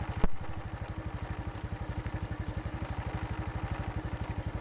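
Small single-cylinder engine running at a steady idle, with a rapid, even chug. A single sharp knock comes just after the start.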